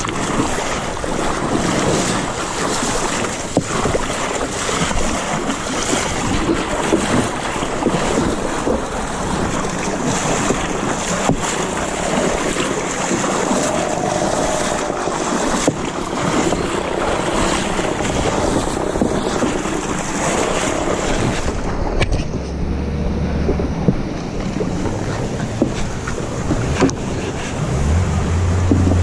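Shallow river water rushing and splashing around the hull of a narrow wooden boat moving through rapids, with wind noise on the microphone. About 22 seconds in the hiss thins out and a low rumble comes in.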